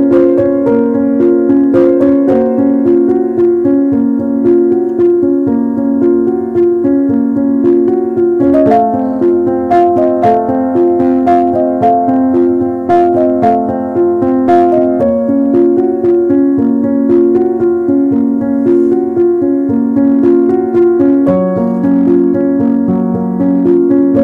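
Background piano music, a melody of held notes over chords.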